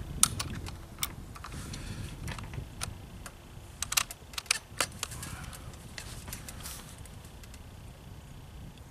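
Sharp metallic clicks of a Hatsan Carnivore .35 caliber bolt-action air rifle being cycled by hand to cock it for the next shot: a handful of separate clicks over the first five seconds, then quiet.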